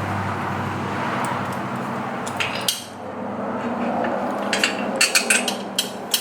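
A metal brake caliper, a four-piston big-brake unit, being slid onto its mounting bracket over the rotor, with scraping and then a run of sharp metal clinks in the last couple of seconds.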